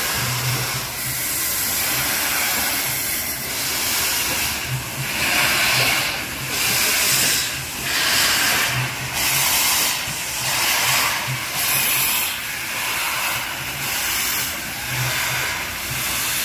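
ČSD class 477.0 steam locomotive 477.013 hissing loudly as it blows steam from its cylinder drain cocks, the hiss swelling in pulses about once a second.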